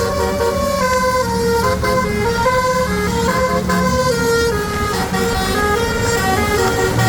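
Bus's basuri telolet musical horn playing a melody of short held notes that step up and down in pitch, over a low rumble.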